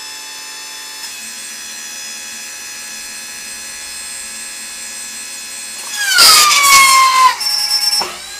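Homemade hydraulic press power pack, an electric motor driving a hydraulic pump, running with a steady whine. About six seconds in it gets much louder and its pitch falls for a second or so as the pump comes under load, then it settles back to a steady run.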